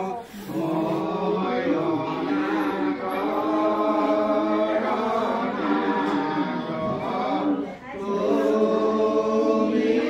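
Several voices singing together in a slow, chant-like melody with long held notes; the singing dips briefly near the end and then picks up again.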